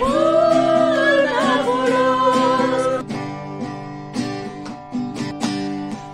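Acoustic guitar strummed with a voice singing along. The voice holds long notes for the first three seconds or so, then the strum strokes come through more plainly.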